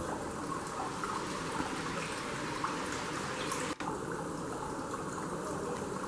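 Steady running and trickling water, like a water feature.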